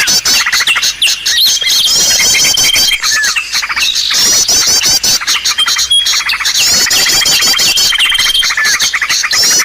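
A loud, dense bird-lure recording of small songbirds calling over one another: a long, level high whistle, fast rattling trills and quick chirping phrases, with the same pattern coming round again every two or three seconds.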